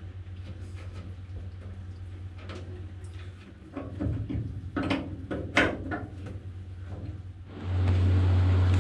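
Light metallic clinks, scrapes and knocks of a round bolted metal cover plate being handled and worked with a screwdriver, sharpest and most frequent in the middle, over a steady low hum. Near the end a louder hum and hiss comes in.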